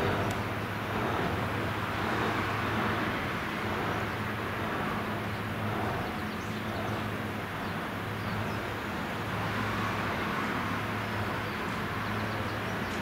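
Steady low engine hum over a constant wash of outdoor machinery noise.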